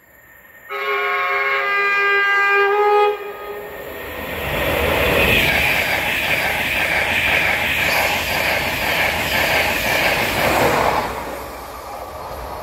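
A train horn sounds for about two seconds, its tones shifting once or twice. Then a passing train's loud rushing noise builds up and eases off near the end.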